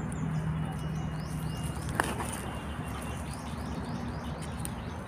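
A small knife trimming a mushroom stem over dry leaf litter, with one sharp click about two seconds in. Faint bird chirps come in a quick run of high notes in the background.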